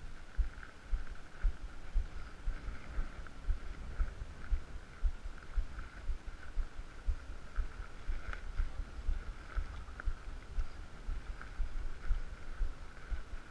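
Irregular low thumps and rumble on an action camera's microphone as a downhill mountain bike rolls slowly over paving, with a faint high ticking.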